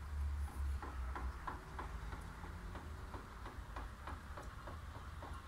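Light, uneven ticking, about three ticks a second, over a steady low rumble.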